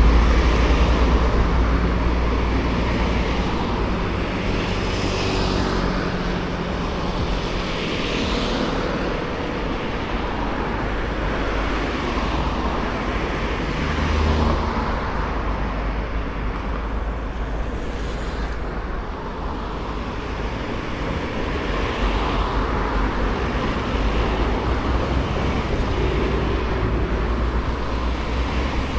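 Outdoor traffic noise: road vehicles passing in slow swells, over a low wind rumble on the microphone.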